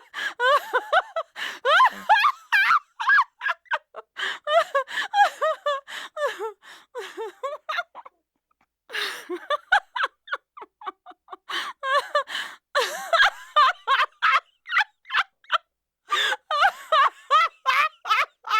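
Human laughter, high-pitched, in rapid breathy bursts of 'ha-ha' that stop for a moment about eight seconds in and then start again.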